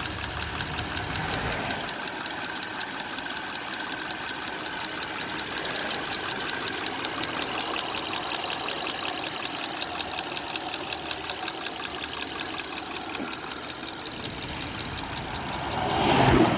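2005 Honda Odyssey's 3.5-litre V6 running, with a slight, rapid, even ticking over the engine sound. It grows louder briefly near the end.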